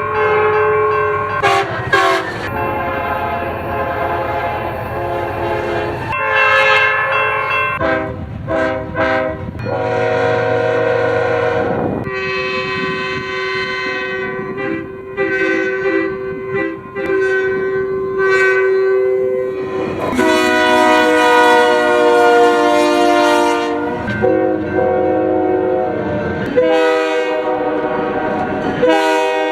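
A series of train horn soundings from several different horns, cut one after another: long held blasts, with a run of short toots partway through.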